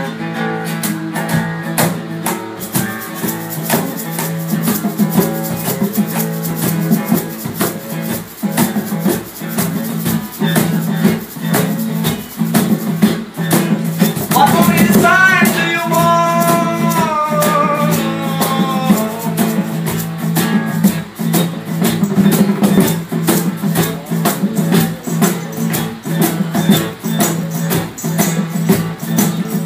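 Acoustic guitar strummed under a fast, steady rattling percussion keeping time, with held low notes beneath. A short sung phrase comes in about halfway through.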